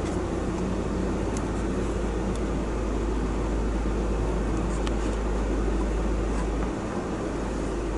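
Steady low engine and road rumble of a tow vehicle driving slowly, heard from inside the cab. The rumble eases a little near the end.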